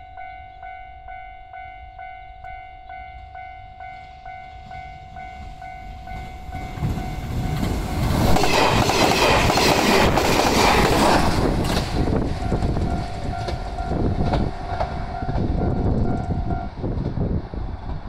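A Japanese level-crossing warning bell dings steadily over and over. About seven seconds in, the JR Yakumo limited express, a 381-series electric train, rushes past at speed, loudest for a few seconds, followed by a string of wheel clacks over the rail joints. The bell stops near the end as the train clears.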